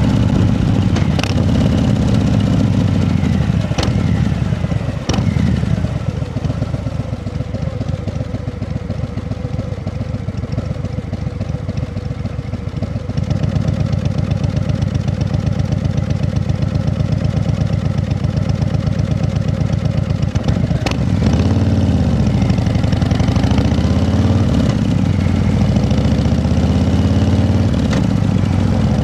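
An engine running, its speed rising and falling several times in the second half, with a few sharp clicks in the first seconds.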